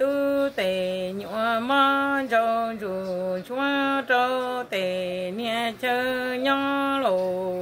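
A woman singing in a slow, chant-like style, holding long steady notes that step up and down between a few pitches, with brief breaks between phrases.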